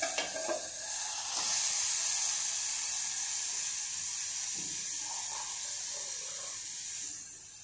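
Coriander, onion and spice filling sizzling with a steady hiss in a hot kadhai just uncovered, with a brief metal clink as the steel plate lid is lifted at the start. The hiss grows louder about a second and a half in and eases off near the end.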